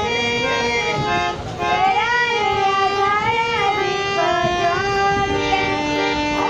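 Live singing with a portable harmonium: the harmonium's reeds hold sustained notes while a high voice sings a gliding melody over them.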